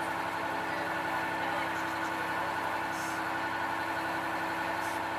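Landing craft's engine running steadily while the boat is under way.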